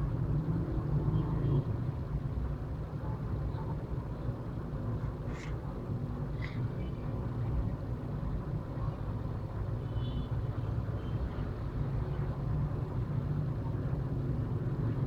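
Steady low background rumble, with two brief high chirps about five and six and a half seconds in.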